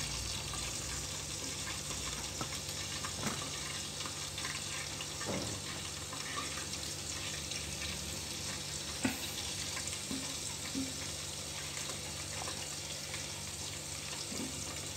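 Oil sizzling steadily in an electric rice cooker's inner pot used as a frying pan, a gentle sizzle on the cooker's lower heat, with a few small clicks and knocks as ingredients go in.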